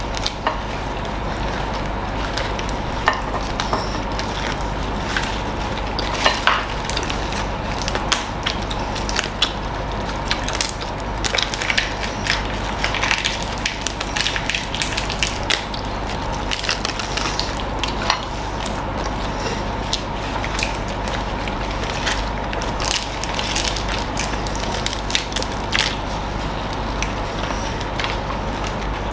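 Eating sounds: crispy bánh xèo crepe being crunched and chewed while lettuce leaves are torn and handled, giving many small irregular crackles over a steady low hum.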